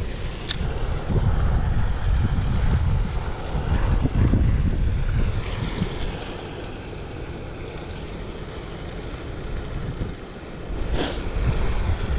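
Wind buffeting the microphone: a gusty low rumble that eases off in the middle and picks up again near the end. A single sharp click comes about half a second in, and a short hiss shortly before the end.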